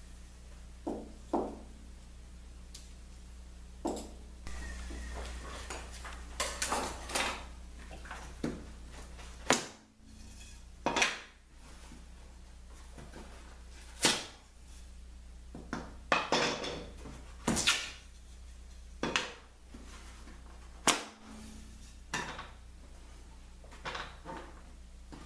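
Irregular clanks, knocks and clatters of metal tools and parts being handled and set down on a workbench, some ringing briefly.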